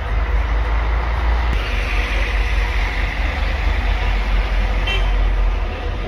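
Road traffic going by, swelling as a vehicle passes, with a short car horn toot near the end.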